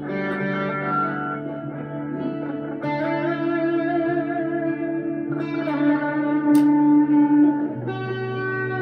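Harley Benton CST-24T electric guitar with P90 pickups, played through a Harley Benton Plexicon pedal into a Blackstar HT1-R amp. Four slow chords are struck, each left to ring out with reverb.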